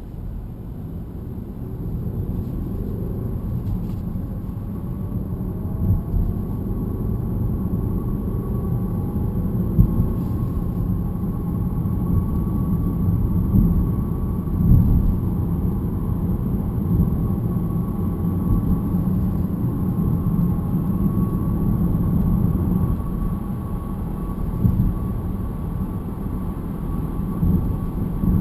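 Low road and drivetrain rumble inside the cabin of a moving BMW E90 318, with a thin steady metallic whine above it. The whine is put down to a worn differential.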